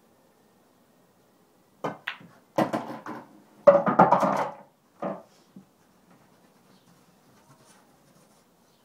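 Pool cue striking the cue ball, then a run of sharp clicks and knocks of the balls and cue on the pool table, starting about two seconds in and lasting about three seconds, loudest near the middle.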